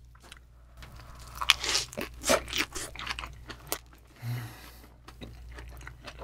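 Close-miked biting and chewing of a perilla-leaf wrap of raw yellowtail sashimi with ssamjang and raw garlic, heard as a quick run of crisp crunches.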